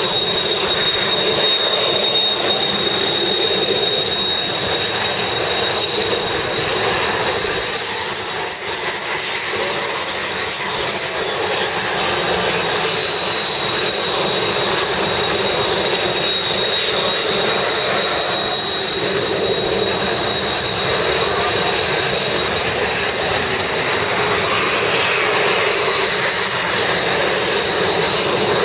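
Kawasaki T-4 trainers' twin turbofan engines running on the flight line: a loud, steady jet whine over a rushing roar, its high whistle climbing in pitch and settling back twice.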